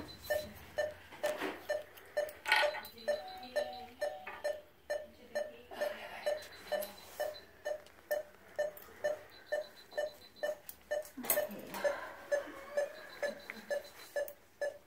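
Anaesthesia monitor beeping steadily with the anaesthetised dog's pulse, about two and a half short beeps a second. Light clicks of surgical instruments come through between the beeps.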